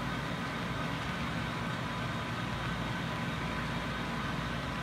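Model intermodal train's cars rolling steadily past along the track, a continuous noise of small wheels running on rail.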